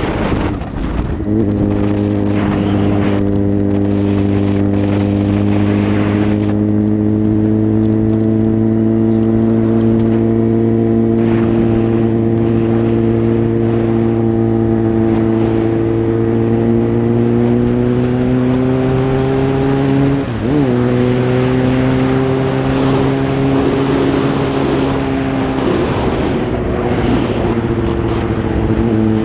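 Suzuki GSX-R 600's inline-four engine heard from the rider's seat while riding, a steady drone that slowly climbs in pitch and falters briefly about twenty seconds in, with wind rush over it.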